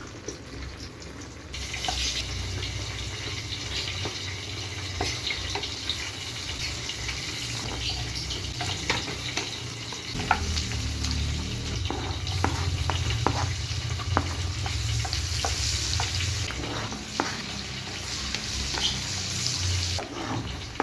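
Food frying in a pan with a steady sizzle that starts about a second and a half in, with scattered clicks of a utensil stirring it.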